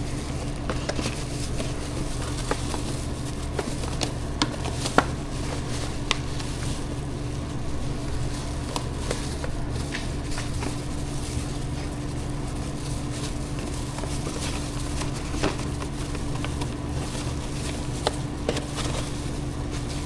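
Scattered light clicks and taps of food being handled and packed into takeaway containers, over a steady low hum.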